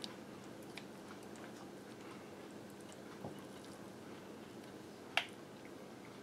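Faint, soft sounds of a basting brush spreading sticky glaze over a roast and vegetables in a cast iron roaster, with a few light clicks, the sharpest about five seconds in, over a low steady hum.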